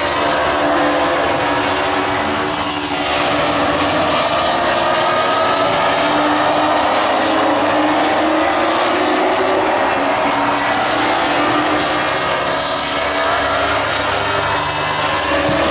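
Engines of a field of Baby Grand stock cars racing on a short oval track, the engine note rising and falling in pitch as cars come past.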